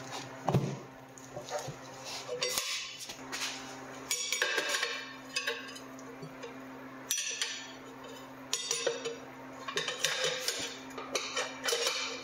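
Metal tools clinking and scraping against a motorcycle wheel during a manual tire change, in uneven clanks and scrapes.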